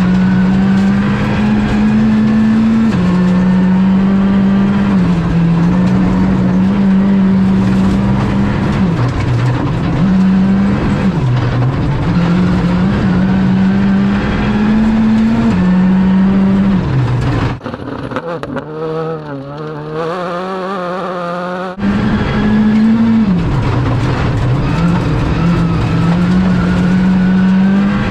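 Skoda Fabia Rally2's turbocharged 1.6-litre four-cylinder engine, heard from inside the cabin, driven hard on gravel: the revs climb and then step down at each gear change, over and over. For about four seconds past the middle the sound drops to a quieter, wavering engine note, then the full onboard sound comes back.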